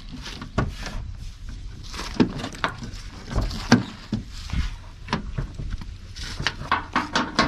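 Irregular metallic clicks and knocks from hand tools on the fender's mounting bolts as they are tightened, with a quick run of clicks near the end.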